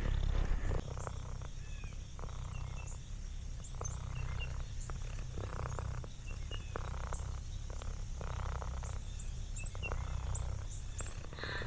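Domestic cat purring, a low steady rattle that swells and eases in stretches of about a second, as with each breath. Faint short high chirps are scattered above it.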